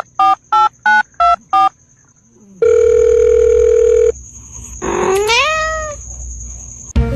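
A quick string of telephone keypad beeps, about three a second, then a steady electronic phone tone lasting about a second and a half. A cat meows once near the end, its pitch rising then falling.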